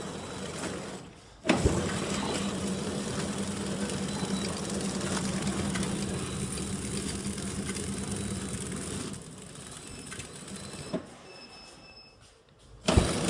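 Horizontal flow wrap packing machine running, its flighted infeed chain and film feed clattering steadily over a low hum. About nine seconds in it drops to a quieter run. Just before the end it comes back loud.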